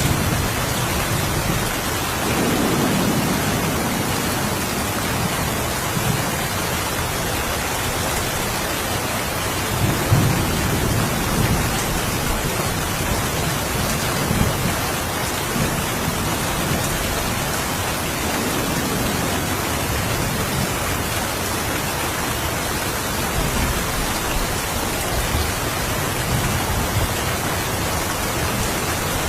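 Steady rain with several low rumbles of thunder rolling in and out, the loudest about ten seconds in.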